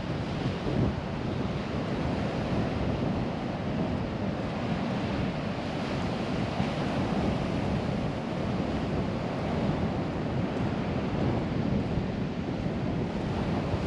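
Gulf surf breaking and washing ashore, a steady rush of waves, with wind buffeting the microphone.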